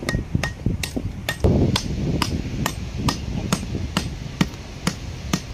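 Steady hammering, about two sharp strikes a second, the first two with a short ring.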